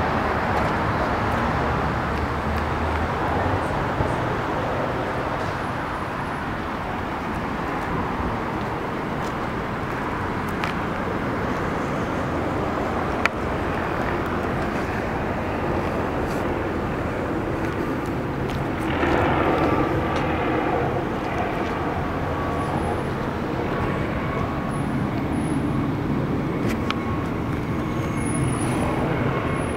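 Steady motor-vehicle and road-traffic noise, swelling briefly about two-thirds of the way through.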